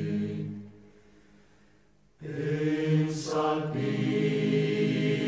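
Background music with chanting voices over held notes; it fades out about half a second in, drops to near silence for about a second, then comes back in suddenly just after two seconds.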